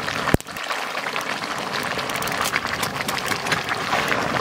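Chicken curry bubbling at a boil in a large iron kadai over a wood fire, with a steady busy crackle of spattering. A single sharp click sounds about a third of a second in.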